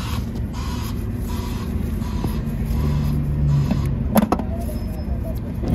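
A steady low rumble with a short whir near the middle, and one sharp metallic clink about four seconds in, as a wrench works the starter motor's mounting bolts from under the car.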